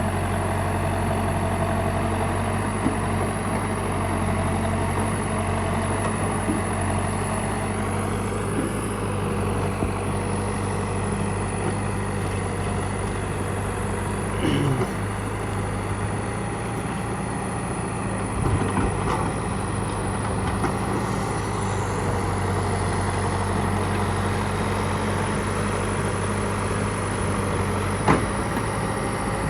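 JCB backhoe loader's diesel engine running steadily while digging, with a few short knocks about halfway through and again near the end.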